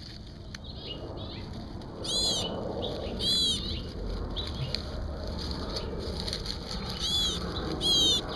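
A bird calling four times with short, harsh, down-arching calls: one about two seconds in, another a second later, and two close together near the end. A low rustle runs underneath.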